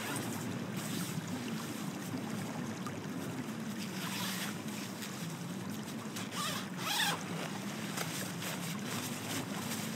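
Wind blowing over the microphone in a steady rush with a low wavering moan, and brief rustles about four and seven seconds in.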